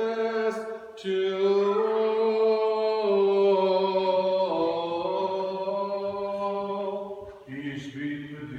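A man's solo voice chanting Orthodox liturgical chant in long, held notes that step between pitches. Near the end a lower voice starts.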